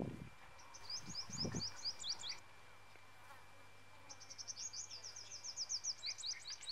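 A songbird sings two fast phrases of quick high notes, each ending in a few downward-sweeping notes, over a faint steady high whine. Two low, muffled sounds come at the very start and about a second and a half in.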